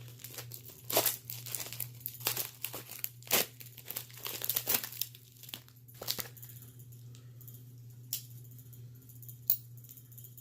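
A mail package being cut and torn open with a pocket knife: irregular crinkling and tearing of the packaging, busiest in the first six seconds or so, then a few sharper rustles. A steady low hum runs underneath.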